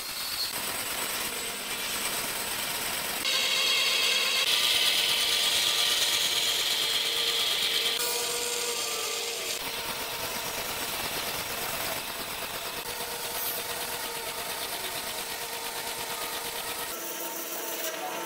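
Large vertical band saw running and ripping thick wooden planks lengthwise. The cutting noise is loudest and highest for several seconds from about three seconds in.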